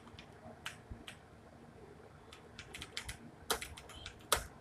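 Computer keyboard typing: scattered key clicks that come faster in the second half.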